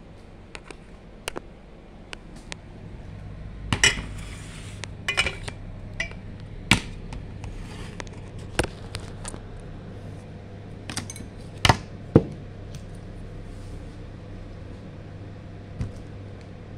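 Dishes and kitchen utensils being handled: scattered sharp clinks and knocks at irregular intervals, loudest around four and twelve seconds in, over a steady low hum.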